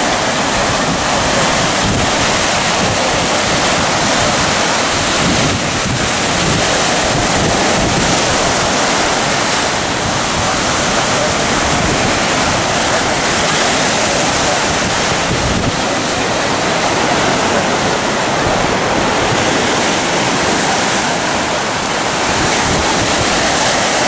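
Strong surf of 3 to 4 foot waves breaking steadily on the beach, with high wind buffeting the microphone.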